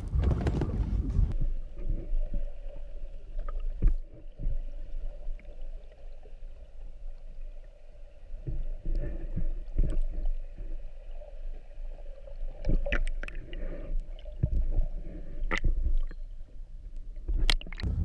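Underwater sound: a fishing boat's engine as a muffled, steady hum carried through the water, with gurgling and scattered knocks. For the first second or so, wind and water noise above the surface.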